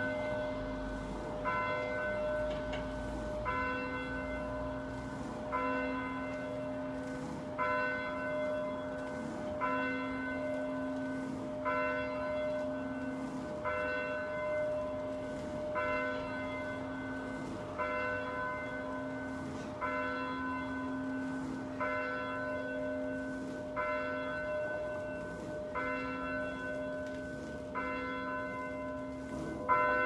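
A single rope-pulled church bell being swung and rung, striking about once every two seconds. Each stroke rings on into the next, so a steady hum of the bell's tones carries between the strikes.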